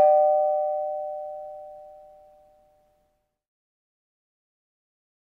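Two-note ding-dong chime, a higher note and then a lower one, both ringing out and fading away over about two and a half seconds.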